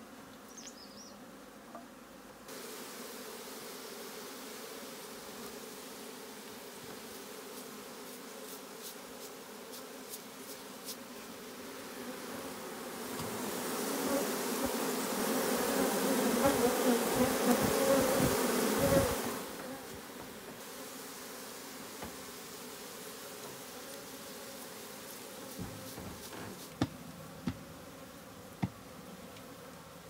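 A swarm of honeybees buzzing steadily around a traditional log hive opened for its combs to be cut out. The buzzing swells much louder for about six seconds in the middle, and a few sharp clicks come near the end.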